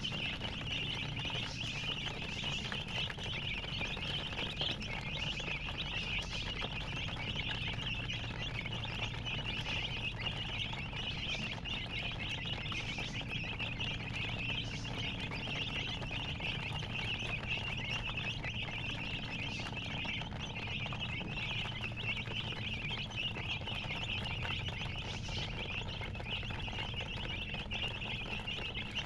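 Many baby chicks peeping continuously in a dense chorus of high chirps, over a low steady hum.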